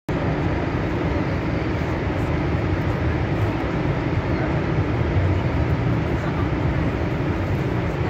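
Steady rush of water going over Horseshoe Falls, a constant noise, heaviest in the low end.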